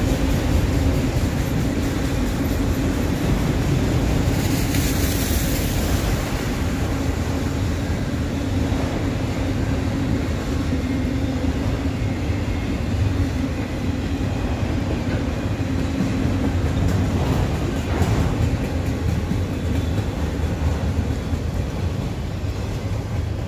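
Autorack freight train cars rolling past with a steady rumble of steel wheels on rail. A brief high hiss comes about five seconds in.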